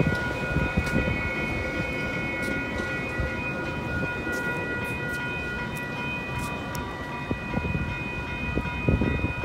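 Metra bilevel commuter train rolling through a grade crossing and away, a low uneven rumble that eases after the first few seconds. Several steady high ringing tones hold through it, with a short low rumble near the end.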